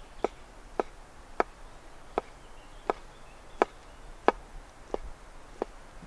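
Knife chopping sliced cheese on a wooden cutting board: about nine sharp, even knocks of the blade striking the board, roughly one and a half a second.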